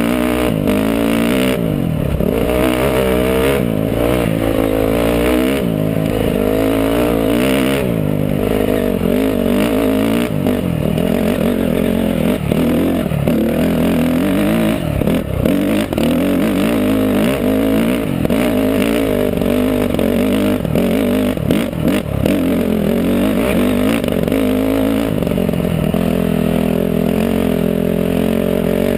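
Honda CRF four-stroke dirt bike engine, heard close up, being ridden with the throttle opened and closed so the engine note keeps rising and falling.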